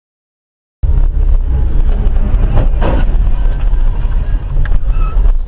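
Silence, then a car's driving noise cuts in abruptly about a second in: a loud, steady low road and engine rumble, with a short louder rush of noise about two seconds in.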